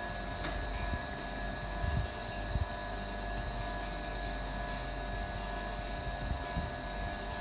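Espresso machine pump running steadily, forcing water through a test basket on a profile stage set to about 6 bar: an even hum with a high hiss.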